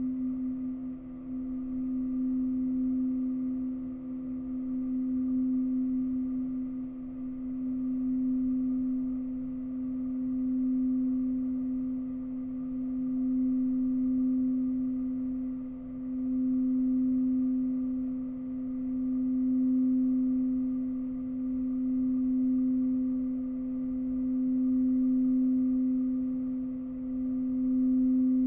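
A frosted quartz crystal singing bowl sung by circling a mallet around its rim, holding one low pure note that swells and eases about every three seconds. A higher bowl's note dies away in the first couple of seconds.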